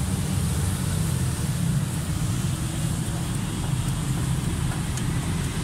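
Steady low rumble of background road traffic.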